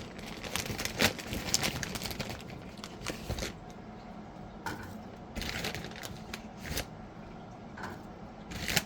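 Plastic bag of frozen pizza rolls crinkling as it is handled, in short irregular rustles with small clicks.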